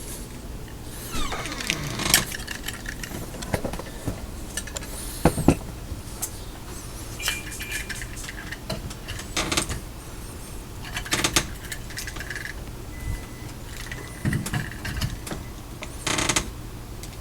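Metal deadbolt parts being handled and fitted into a door: scattered clicks, clinks and short scrapes.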